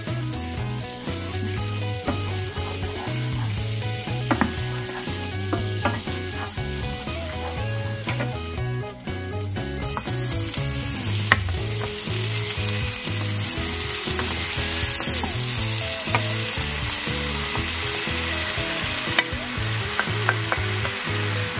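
Chopped garlic and spring onions sizzling in garlic butter and olive oil in a frying pan as a wooden spatula stirs. About ten seconds in, the sizzle grows louder as sliced hedgehog mushrooms are scraped in from a bowl, with a few sharp knocks of the spatula.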